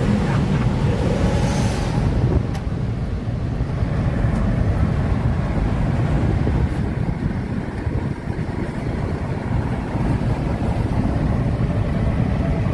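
Moving car heard from inside the cabin: steady low rumble of engine and tyres on the road, with a brief rush of higher hiss about a second and a half in.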